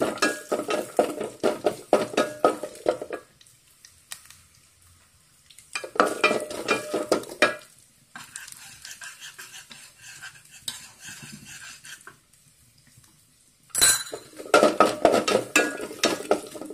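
A wooden spatula stirs and scrapes chopped coconut frying in ghee in an aluminium pot, with a light sizzle. The stirring comes in spells: about three seconds at the start, a short burst about six seconds in, and again from about fourteen seconds. Between the spells the sizzle goes on more quietly, and a single sharp knock comes just before the last spell.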